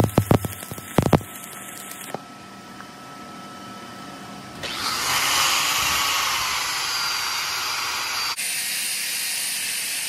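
Stick-welding arc on pipe (cellulose 6010/8010 rods) crackling in rapid sharp spurts for about the first second as the cap pass is finished, then a low hiss. About four and a half seconds in an angle grinder starts and runs steadily with a whine, its sound shifting about eight seconds in.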